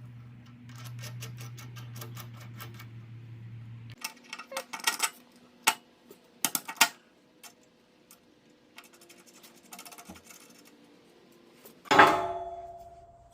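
Metal tools and hardware working on a milling machine's caster feet. For about four seconds there is rapid clicking over a low hum, then scattered metallic clinks, and near the end a loud metal clang that rings as it fades.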